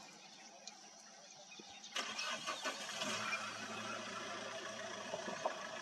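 A car engine starting about two seconds in, then running at a steady idle with a low hum.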